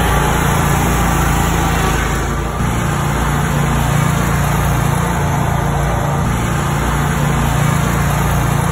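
Bob-Cat commercial mower's engine running steadily as the mower is driven, with a brief dip in level about two and a half seconds in.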